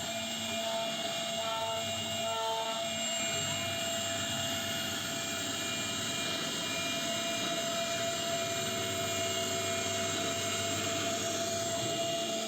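A CNC router spindle runs at a steady high-pitched whine while carving wood, over a constant hiss of cutting. A few short repeated tones sound in the first three seconds.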